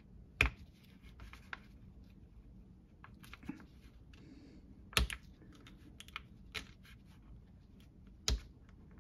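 Needle-nose pliers clicking and tapping on a comic book's metal spine staple as the staple's prongs are bent back down. The clicks are small and irregular; the sharpest come about half a second in, midway, and near the end.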